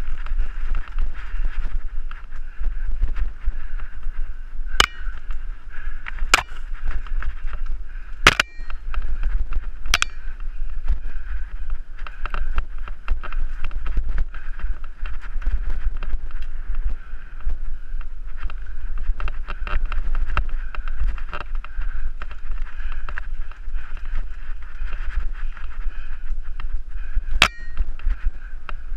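Wind rumbling on a helmet-mounted camera's microphone as a mountain bike rides fast along a dirt singletrack, with the bike rattling over the bumps. Sharp knocks come four times in the first ten seconds and once near the end.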